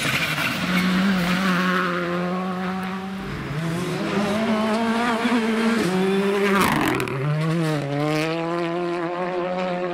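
Rally cars' turbocharged four-cylinder engines at high revs on a gravel stage, the pitch stepping up and down with quick gear changes and lifts. A short burst of noise cuts across it about seven seconds in.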